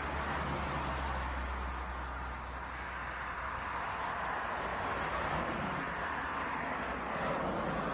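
Twin-engine jet airliner on final approach with gear down, its engines giving a steady jet noise over a low rumble.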